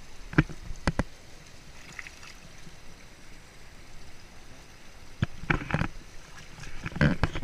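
A small stream of water pouring steadily over rock into a shallow pool. Two sharp knocks come about half a second and a second in, and a cluster of louder, sudden noises comes near the end.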